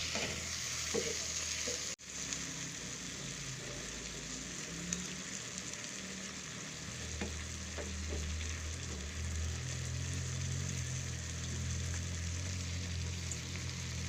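Fried chicken pieces sizzling gently in a pan of butter and evaporated-cream sauce, with a spoon stirring and scraping now and then. The sound drops out briefly about two seconds in.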